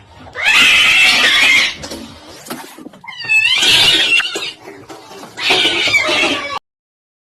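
A cat yowling loudly three times, each call lasting about a second, the last one cutting off suddenly.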